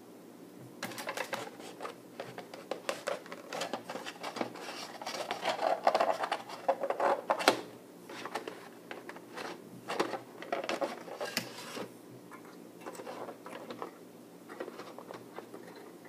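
Handling noise of fingers bending and twisting thin coated wire into a motor coil close to the microphone: irregular scratchy rustles and small clicks that start about a second in, are busiest in the middle, and thin out toward the end.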